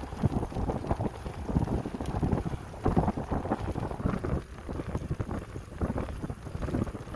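Wind buffeting the microphone of a mounted phone on a moving recumbent bicycle: an irregular low rumble that swells and dips.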